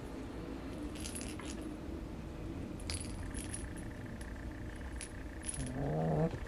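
Two kittens play-fighting on carpet: soft scuffling with scattered light, faint jingling clicks, then a short low voice-like sound near the end.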